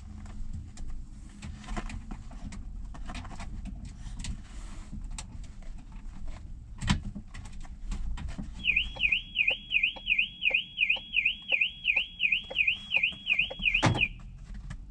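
An electronic alarm siren, of the warbling car-alarm kind, sweeping rapidly up and down about three times a second for roughly five seconds in the second half. Before it come rustling handling noises and a sharp knock, and another knock comes just as the siren cuts off.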